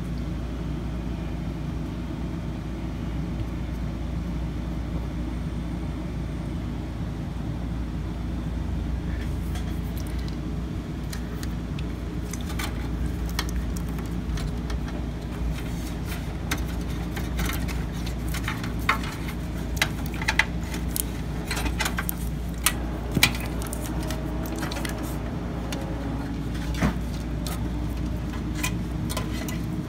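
Cables and plastic connectors being handled inside an open desktop computer case, giving scattered light clicks and rattles that get sharper and more frequent in the second half, over a steady low hum.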